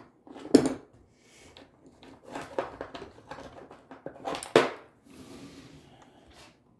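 Metal tool prying and scraping at a chip on a laptop motherboard, with two sharp clicks, one about half a second in and another at about four and a half seconds, and small knocks and scraping between them. The chip does not lift because it is soldered to the board.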